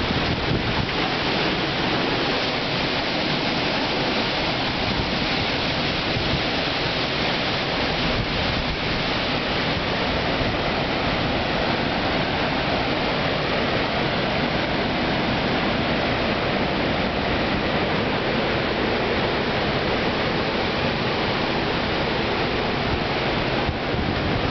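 Hurricane-force wind blowing without a break, a steady, even rushing noise with no let-up.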